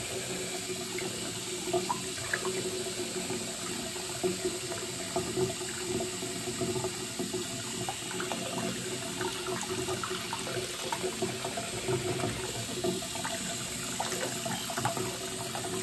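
Tap water running steadily from a faucet, the stream splashing onto a wet kitten's fur and into the sink basin as a hand rinses it, with small irregular splashes.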